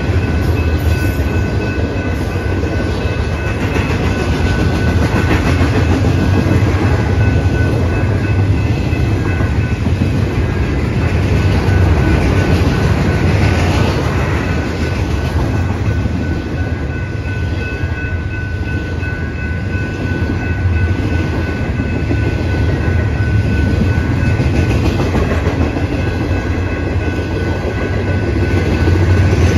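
BNSF double-stack freight train of well cars loaded with waste containers rolling past a grade crossing: a steady rumble of wheels on rail with clickety-clack over the joints. A grade-crossing bell rings over it.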